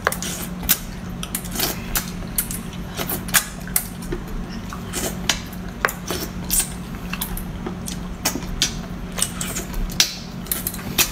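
Small shellfish being eaten by hand: a quick, irregular run of sharp clicks and cracks from the little shells at the mouth and fingers, over a steady low hum.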